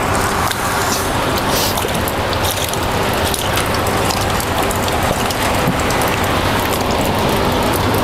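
Steady rain falling on the water and surrounding surfaces, a dense even patter with a faint low hum underneath.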